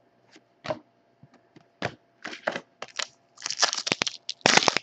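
Foil trading-card pack and cards being handled: a run of crinkles and rustles, sparse at first and becoming denser and louder toward the end.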